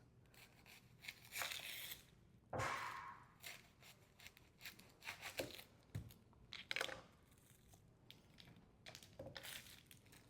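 Faint crinkling and tearing of an onion's dry, papery skin as it is peeled by hand, with a couple of soft knocks in between.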